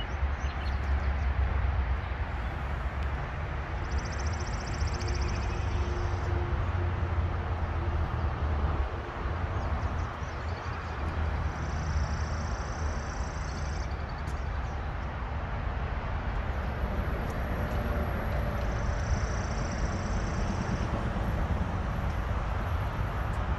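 Steady outdoor background noise with a strong low rumble. A high, rasping buzz comes in for about two seconds roughly every seven seconds.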